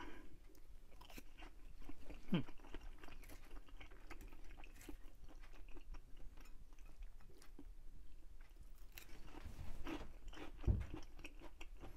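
Close-up chewing of a mouthful of oyster tempura, the fried batter crunching in small crackles, with a few heavier bites.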